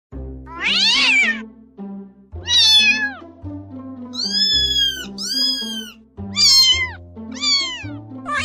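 Cat meowing about six times, some calls falling in pitch and some high and arched, over background music.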